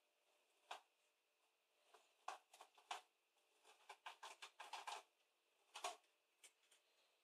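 Small plastic bowl scraping and knocking on a hard floor as a cat pushes it along with its head: a string of short, irregular scrapes and taps, busiest in the middle.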